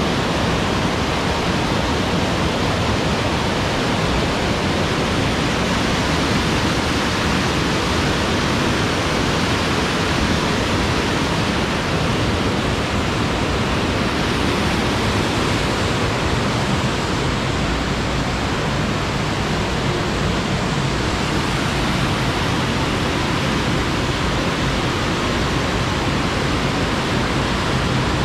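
Running water rushing steadily, like a fast stream close by: a loud, even hiss that does not change.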